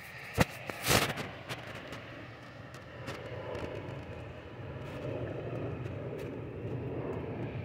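Steady outdoor engine rumble, slowly growing louder, with a sharp click and a brief louder knock in the first second.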